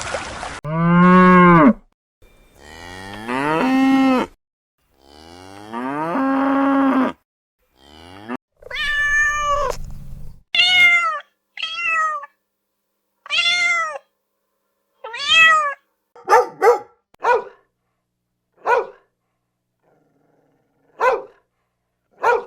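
A cow mooing three times in long calls, followed from about eight seconds in by a domestic cat meowing repeatedly, the meows getting shorter and more spaced toward the end.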